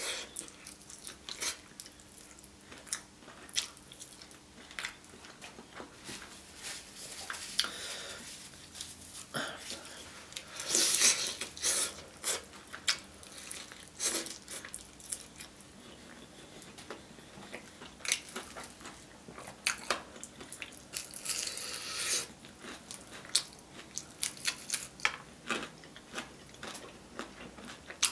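Close-up eating of sauce-covered Korean fried chicken: meat pulled from the bone by hand and chewed, with many short mouth clicks. Two louder noisy stretches come about eleven and twenty-one seconds in.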